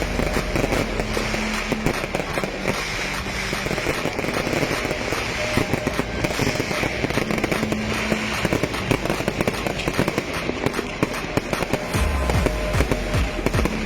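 Fireworks display: a dense, continuous run of bangs and crackling bursts, with music playing underneath.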